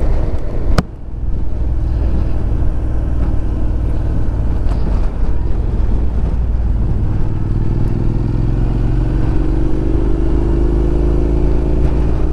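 Honda NC750X's parallel-twin engine running under wind noise on the microphone as the motorcycle rides along. There is a single sharp click about a second in, and from about seven seconds the engine note rises steadily as the bike accelerates out of a roundabout.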